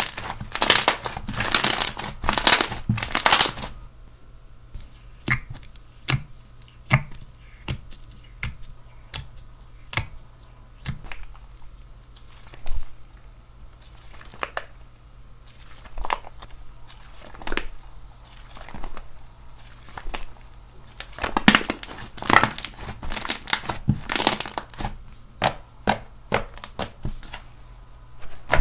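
Slime being squeezed and pressed by hand, giving irregular crackling and popping clicks. The clicks come thick at first, thin out for a long stretch, then thicken again in a burst later on.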